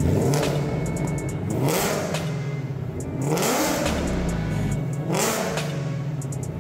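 Whipple-supercharged 5.0 Coyote V8 of a 2019 Mustang GT revving three times, each rev climbing and then falling back, over background music.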